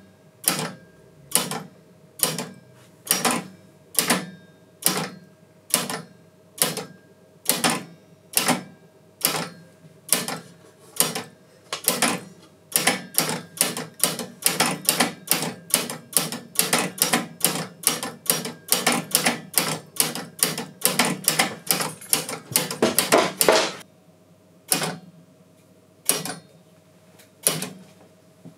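Synchronome electromechanical bell sequencer stepping: each relay pulse to its coil snaps the mechanism forward with a sharp mechanical clack. The clacks come about once a second, speed up to several a second about twelve seconds in, and thin out to a few slower ones near the end.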